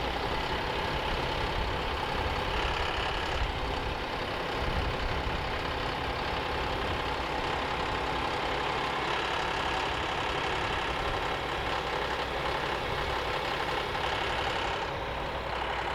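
John Deere tractor engine running steadily.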